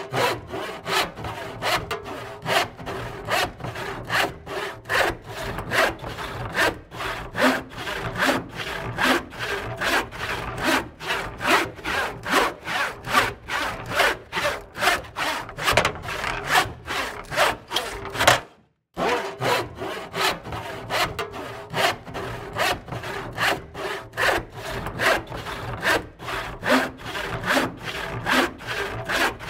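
Hand saw cutting through wood in steady back-and-forth strokes, two or three a second, with a brief break about two-thirds of the way through.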